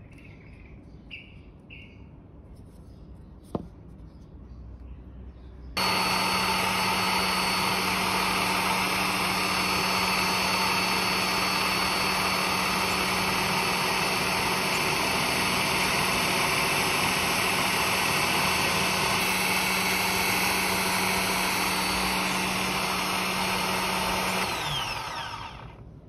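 Bosch benchtop drill press running steadily while drilling axle holes through a pine block. It comes in suddenly about six seconds in, after a few faint handling clicks, and winds down with a falling pitch near the end.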